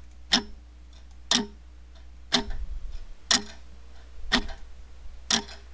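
A person making a clock-like ticking noise by themselves: six sharp ticks, evenly spaced about one a second.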